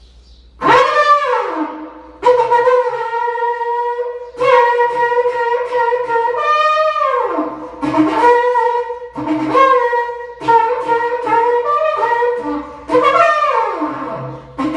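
Berrante, the Brazilian drover's ox-horn trumpet, blown in a series of blasts. Each blast swoops up at the start and sags at the end, and some are held a second or more. It is the lunch call, used to tell the other drovers that the meal is ready and played like an army bugle call.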